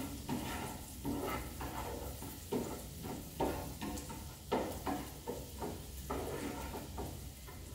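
Chopped peppers frying in oil and butter in a pan, sizzling steadily, while a utensil stirs them with repeated scraping strokes against the pan, about one or two a second.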